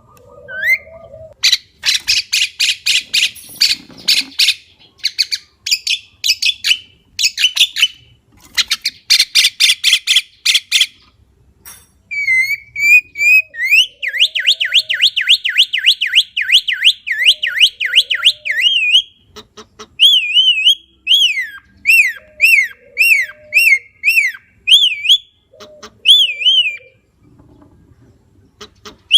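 Javan myna calling: a run of harsh, rapid rasping chatter for the first ten seconds or so, then a fast warbling whistle and a string of sharp whistled notes that swoop up and down, with a few short low notes in between.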